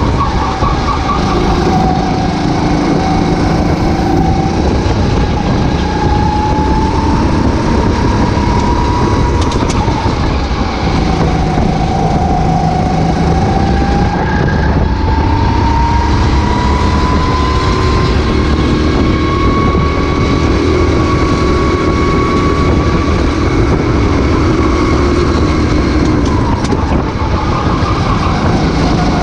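Racing kart engine running hard at race speed, heard onboard. Its note rises and falls slowly with the revs through corners and straights.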